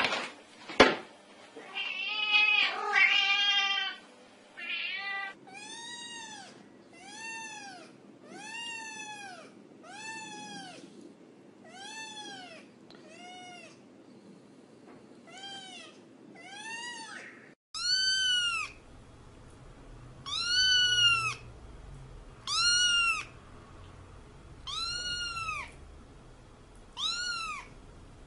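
A cat meowing over and over: a longer wavering meow near the start, then short meows that each rise and fall in pitch, about one a second. In the second half they come slower and higher-pitched, about one every two seconds.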